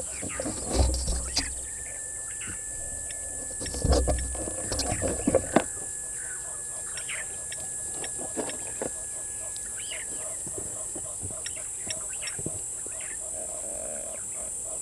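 Knocks and bumps of a vervet monkey clambering on the camera housing right by the microphone, loudest about a second in and again from about 4 to 5.5 seconds in, followed by birds chirping.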